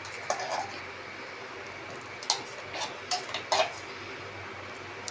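A steel spoon scraping and clinking against the inside of a stainless-steel mixer-grinder jar as it stirs freshly ground thick green chilli, tomato and garlic paste. There are a handful of short scrapes and taps, spaced unevenly about half a second to a second apart.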